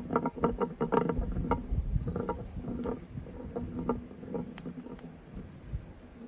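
Glass marbles rolling along a wooden marble-run track with a quick series of clicks and clacks. The clicks are dense in the first couple of seconds, then thin out as the rolling fades away.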